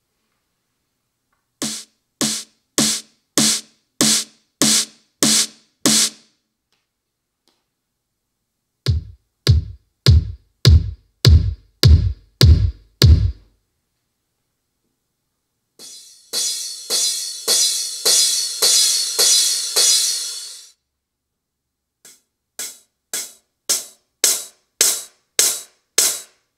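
Roland TAIKO-1 electronic taiko drum played with bachi on its ElecDrums1 electronic drum-kit sound bank, four voices in turn, each hit about eight times at an even pace. First come bright snappy hits, then deep electronic kick-drum hits with a quick downward pitch drop, then a crashing, cymbal-like wash of rapid hits, and last short, sharp ticks.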